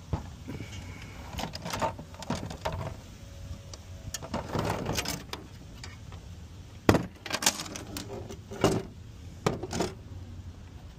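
Metal parts of a laminate floor cutter being handled and fitted together: an irregular run of knocks, clacks and scraping from the aluminium rail and base plate, with the sharpest knocks about seven and nine seconds in.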